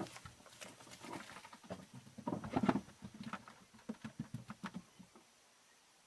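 Faint, irregular taps, clicks and soft knocks of someone moving about the room, which stop about five seconds in.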